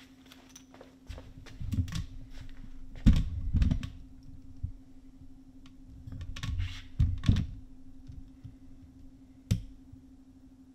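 Handling noise of a clear plastic ruler and sheet of paper being shifted about on a tabletop: three short bouts of clicks and knocks, then one sharp tap near the end. A steady low hum runs underneath.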